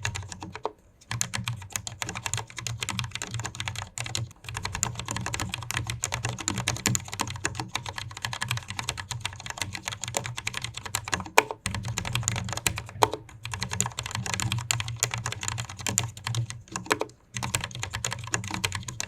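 Fast typing on a Cherry MX Board 10.0 RGB, a low-profile mechanical keyboard with Cherry MX Low Profile Red linear switches in an aluminium case: a dense, steady run of key clicks broken by a few brief pauses.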